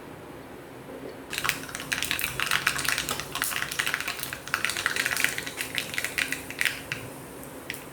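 Mustard seeds popping and spluttering in hot coconut oil for a tempering: a rapid crackle of many small pops that starts about a second and a half in and dies away near the end.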